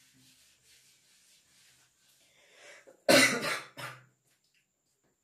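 Whiteboard duster wiping the board in quick back-and-forth strokes, faint and evenly repeated. About three seconds in, a man coughs loudly, with a shorter second cough just after.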